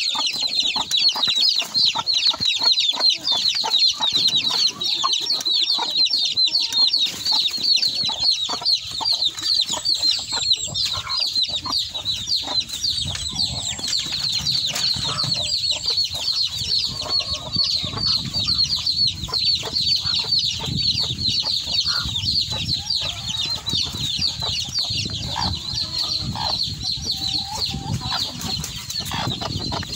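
A brood of chicks peeping continuously in quick, high chirps, with the mother hen clucking now and then.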